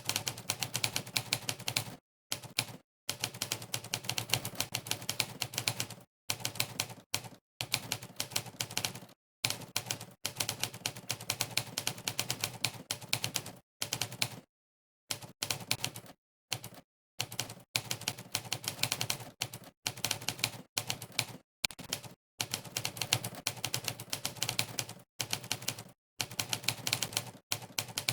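Typing-test 'typewriter' key sound effect firing on each keystroke: a fast clatter of typewriter-like key clicks, many a second, in runs broken by short dead-silent pauses between bursts of typing.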